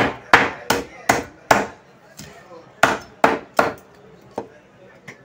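Large knife chopping through fish flesh onto a wooden chopping block: a quick run of five sharp chops, a short pause, three more chops, then two lighter knocks.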